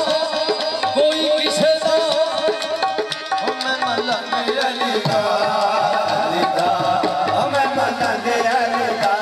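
Live qawwali music with tabla drumming under a continuous melody.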